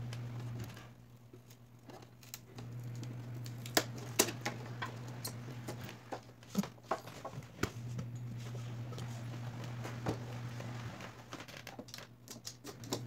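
Scattered clicks, taps and light knocks from hands working at the frame and bezel of a TV's LCD panel, the sharpest about four seconds in and again around seven seconds, over a steady low hum.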